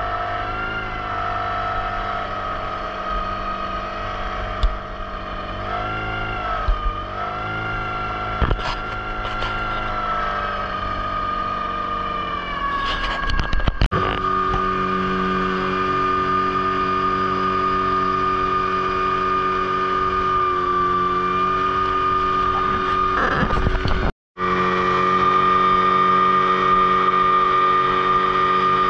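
15-horsepower outboard motor running at cruising speed, driving a wooden longboat along a river. Its note wavers a little in the first half, then holds steady; a few brief knocks come through, and the sound cuts out for a moment about three-quarters of the way in.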